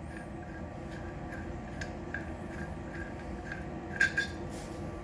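Large steel nut being worked off a minibike's steering stem, with light metallic ticks about three a second, then two sharper metal clinks about four seconds in.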